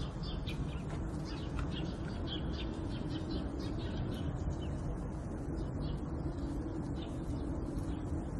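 Small birds chirping in quick, repeated short notes over a steady low background hum.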